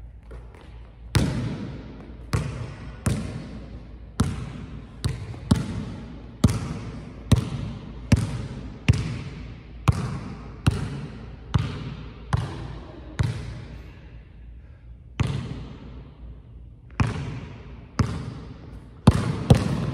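A basketball bouncing hard on a gym floor, about one bounce a second, each bounce ringing out in the hall's echo. The bouncing starts about a second in and pauses briefly about two-thirds of the way through.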